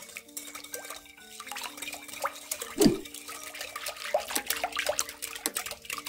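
Metal wire whisk beating sugar-water and oil in a glass bowl to dissolve the sugar: rapid ticking of the wires against the glass with liquid sloshing, and one louder knock about three seconds in.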